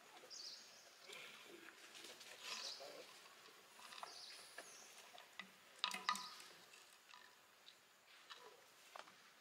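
Faint high-pitched chirping calls, with scattered sharp clicks and the crackle of a plastic bottle being chewed and handled by a young macaque. The loudest sound is a short cluster of crackles about six seconds in.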